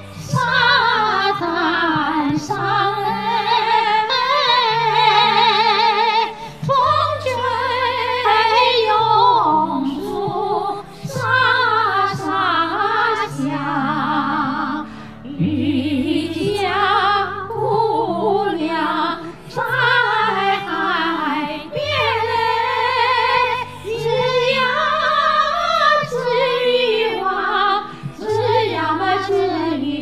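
Two women singing a Chinese song as a duet in a trained, operatic style with wide vibrato. Their phrases break briefly between lines, over an accompaniment of sustained low notes.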